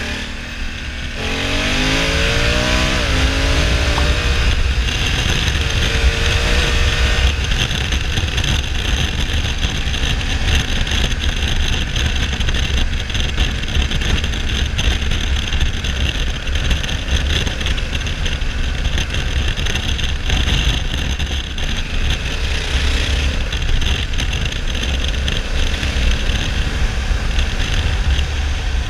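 Honda CRF1100L Africa Twin's 1084 cc parallel-twin engine pulling hard through the gears, rising in pitch over the first few seconds with a break at a gear change. After that comes a steady cruise at road speed under heavy wind rush on the microphone.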